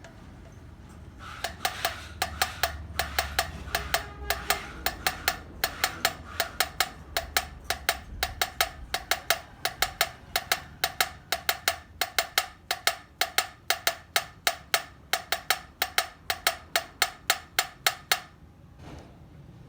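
Hammer blows on metal in quick, even succession, about three to four a second, each ringing with a clear metallic tone. They start about a second in and stop near the end.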